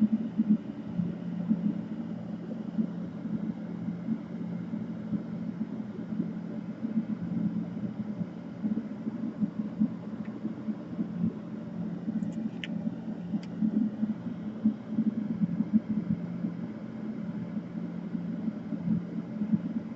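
Steady low background hum with an uneven, fluttering level, and a few faint light clicks about two-thirds of the way through.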